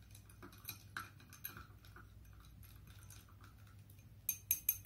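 Ice clinking against a tall glass as a mojito is stirred with a long stirrer: soft, scattered clicks at first, then a quick run of sharper, brighter clinks near the end.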